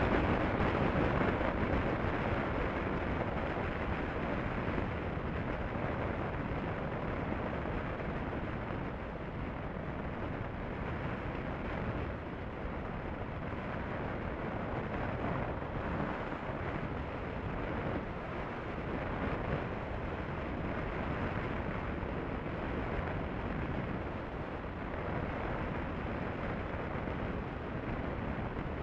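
Steady wind rush on the microphone of a Honda CB500F motorcycle cruising at highway speed, with its engine and tyre noise underneath; a little louder in the first couple of seconds, then even.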